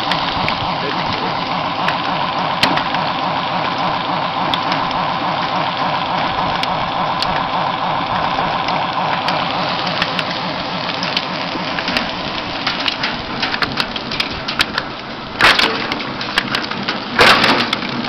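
Firewood-processing machine running steadily while wood cracks and splinters under it in many small sharp snaps, with two loud crunches near the end.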